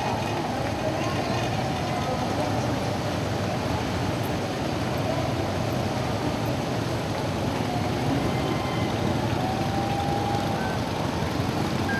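Steady outdoor street noise: a continuous low rumble with a few faint, distant voices.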